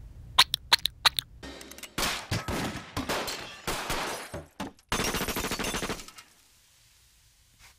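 Cartoon sound effect of a rotary machine gun firing long, very rapid bursts, after a few sharp single cracks at the start; the firing stops about six seconds in.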